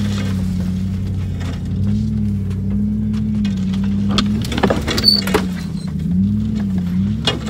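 Chevrolet Silverado pickup's engine running at low speed as it crawls over rough trail, heard from inside the cab, its pitch wavering with the throttle. A cluster of knocks and scrapes comes a little past halfway and another knock near the end, as the truck lurches over the ground and branches brush its body.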